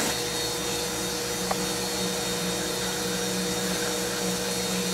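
Water gushing from a cloth-wrapped spray bar into a homemade gold sluice box, over a steady hum.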